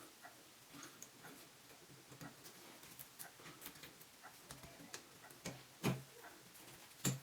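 Faint scattered clicks and light taps from a new Moen shower cartridge and its small parts being handled and fitted into the valve body, with two louder knocks near the end.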